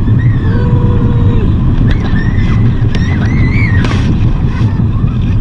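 Small family roller coaster running along its track, a steady loud rumble with wind buffeting the microphone.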